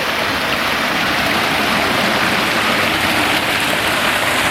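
Mountain stream rushing close by: a loud, steady wash of flowing water.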